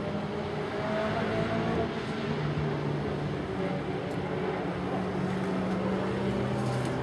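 Car engines running: a steady hum that shifts up and down in pitch a few times.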